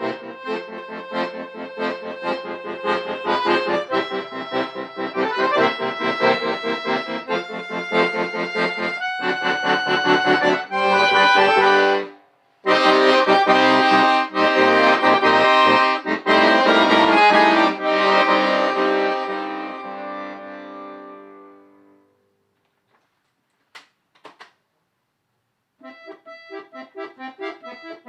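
Solo instrumental music: quick repeated notes, then a brief break and loud held chords that die away about 22 seconds in. After a few seconds of silence with two faint clicks, quick notes start again near the end.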